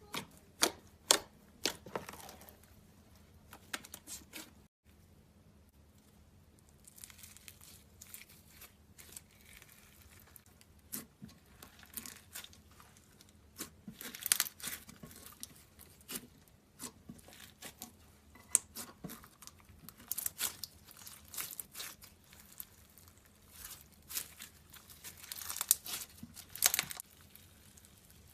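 Crunchy slime being squeezed and pressed by hand, crackling and popping in clusters of sharp clicks with quieter gaps between them.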